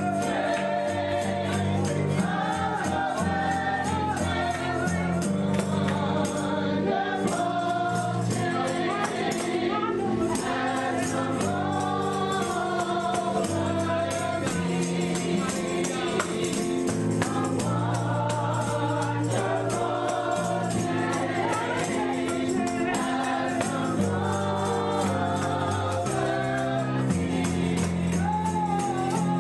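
Gospel music: a choir singing over held low chords, with a tambourine keeping a fast, steady beat.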